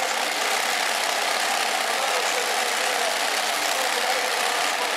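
Multi-engine modified pulling tractor with supercharged engines idling steadily.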